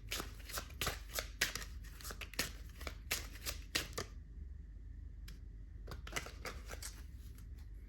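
A deck of tarot cards being shuffled by hand: a dense run of quick card riffles and flicks for about four seconds, then only a few scattered card taps.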